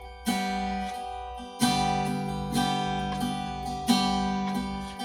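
Acoustic guitar strumming slow chords, each left to ring, with no voice.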